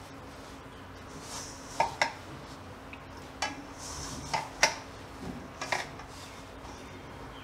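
A hand mixing grated bottle gourd, wheat flour and spices in a stainless steel bowl, with about seven sharp clinks against the steel bowl scattered through the middle of the stretch, the loudest around the midpoint.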